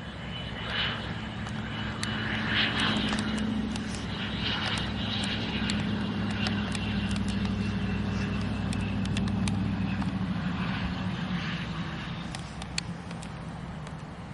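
Airplane engines running as an aircraft moves past: a steady low drone with a thin high whine. The sound swells over the first couple of seconds, the whine fades out about halfway through, and the sound eases near the end.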